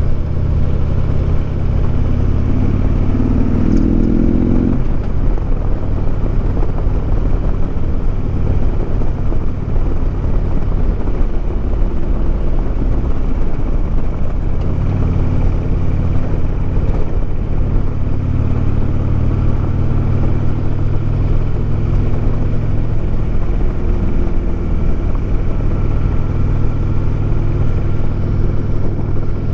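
Harley-Davidson Road King's V-twin engine running under way. About two seconds in its pitch climbs for a few seconds as the bike speeds up, then drops back, and the engine note holds steady after that.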